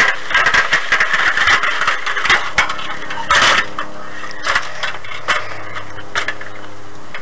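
A ladder rattling and knocking as a wrestler climbs and grabs at it, with a run of sharp knocks and clatters, the loudest about three and a half seconds in.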